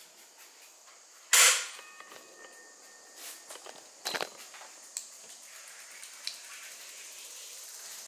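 A car door slams shut about a second and a half in, followed by a smaller knock and a few light clicks.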